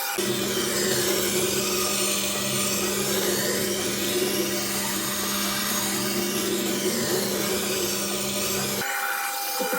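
Güde Tormek-style wet sharpening grinder running: a steady motor hum under the rubbing, grinding noise of steel on the stone. The hum cuts off abruptly near the end.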